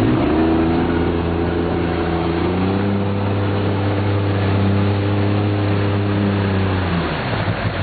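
Motorboat engine running close by, its pitch stepping to a new note about two and a half seconds in and fading out near the end, over a steady wash of wind and water noise.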